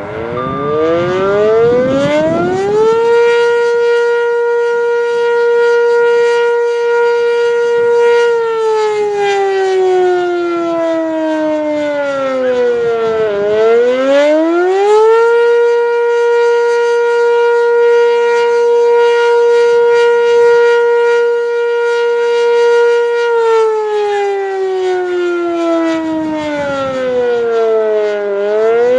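Sentry 10V outdoor warning siren sounding an attack signal. It winds up from a low pitch to a high steady tone in the first few seconds, then twice slides slowly down over about five seconds and climbs quickly back to the high tone.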